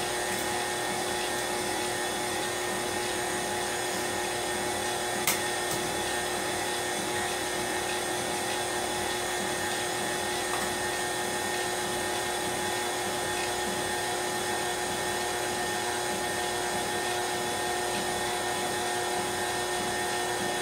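KitchenAid stand mixer running steadily, its motor whining as it beats pound cake batter. A single sharp click about five seconds in.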